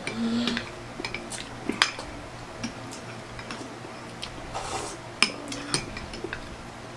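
Metal spoons scraping and clinking in cups of chocolate dessert as two people eat, with scattered sharp clicks, the loudest about two seconds in and again just after five seconds.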